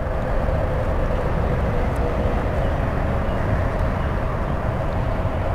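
Steady low rumble of distant road traffic, with a faint steady hum over it.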